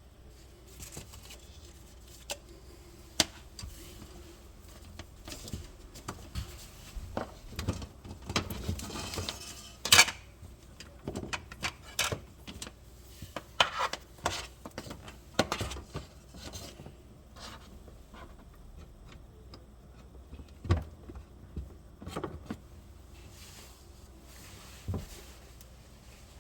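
Irregular clicks, taps and light clatter of small hard parts being handled, with the sharpest click about ten seconds in and fewer sounds in the last few seconds.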